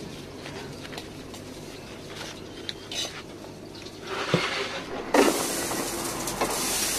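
Faint clinks and taps of plates and utensils. About five seconds in, a loud steady sizzle of food frying on a hot griddle starts suddenly.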